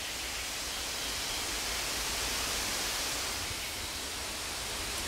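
Steady, even outdoor hiss with a low rumble underneath; no distinct events stand out.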